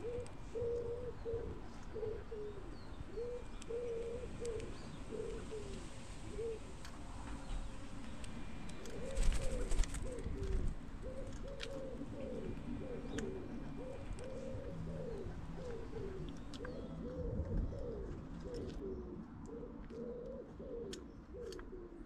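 Pigeons cooing: a long series of low, repeated coos that breaks off briefly and then resumes. About nine seconds in comes a brief, louder low rumble.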